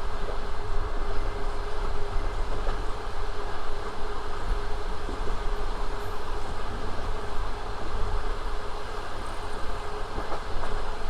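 Passenger train running at speed, heard from on board: a steady rumble of wheels on rail with a constant hum and a few faint clicks.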